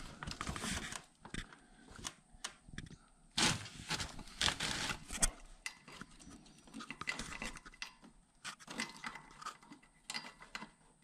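Hand handling of a snowmobile's skid plate and push-pin fasteners being fitted from underneath: scattered clicks, taps and short scrapes. A denser run of louder scraping comes about three and a half to five seconds in.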